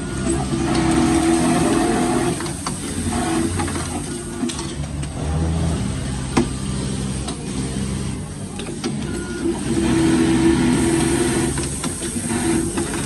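Automatic label sewing machine running, its motor and stitching mechanism making a steady mechanical hum that grows louder for a couple of seconds near the start and again toward the end.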